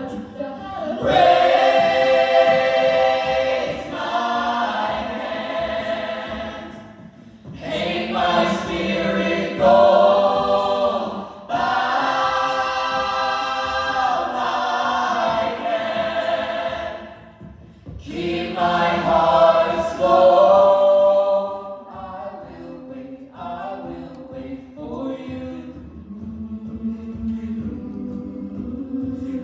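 A cappella group singing a song arrangement, with two soloists singing together into microphones over the full backing voices. The loud, full chords come in phrases that break off and come back several times, then drop to a softer passage near the end.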